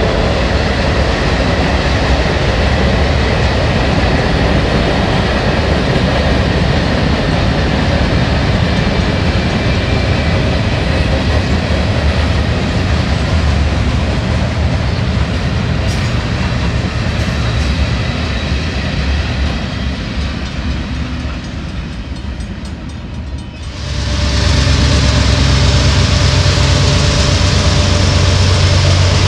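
Freight cars rolling past on the rails in a steady rush of wheel and track noise. About 24 s in it cuts suddenly to a louder sound: Norfolk Southern diesel locomotives passing, their engines running with a steady low drone.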